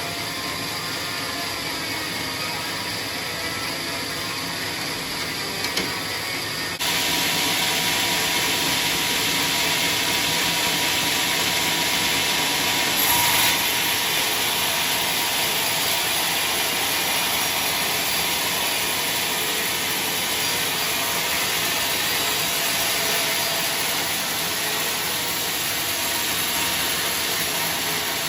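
A power saw running steadily, a continuous mechanical noise. About seven seconds in it steps up abruptly and becomes louder and brighter.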